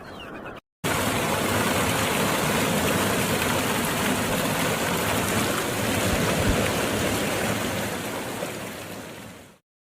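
Waterfall's steady rushing noise, starting abruptly about a second in and fading away near the end.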